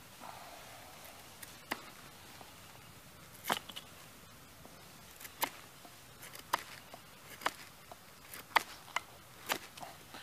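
About eight sharp knocks and cracks at irregular intervals, roughly one a second, from work with a slip-joint folding knife.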